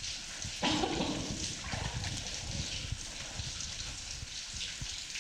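Steady running and trickling water in a flooded mine tunnel, with a brief voice sound about a second in.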